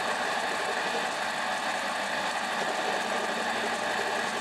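Mini lathe running with a steady, even hum from its motor and drive while the cutting tool is fed across the end of the crankshaft stock to face it.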